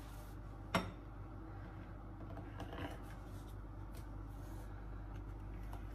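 Quiet handling at a kitchen counter: faint rubbing and light ticks, with one sharp tap just under a second in, over a low steady hum.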